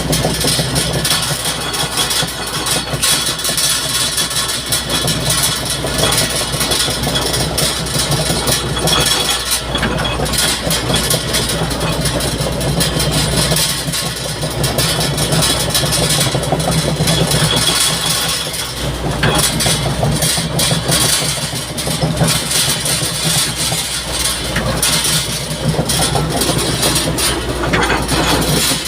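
Heavy engine running steadily, its low note swelling and easing every few seconds, under a constant hiss.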